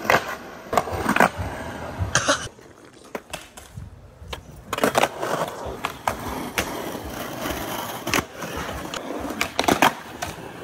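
Skateboard wheels rolling on a concrete skatepark surface, broken by sharp wooden clacks and thuds of boards popping and landing, several times.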